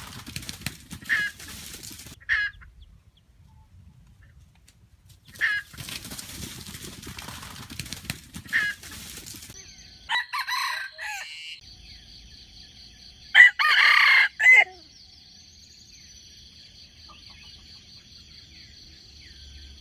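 Rooster clucking with short calls, then crowing: a brief call about halfway through and a loud crow about two-thirds of the way in. Rustling noise comes in two stretches early on, and a steady high whine sets in about halfway through.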